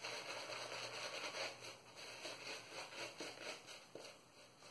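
Faint wet swishing of a Stirling 26mm Finest Badger shaving brush worked in circles over the face, building soap lather on stubble.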